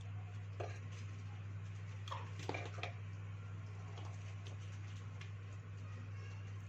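Steady low electrical hum with a few light clicks and taps of small parts being handled on a workbench, most of them between about two and three seconds in.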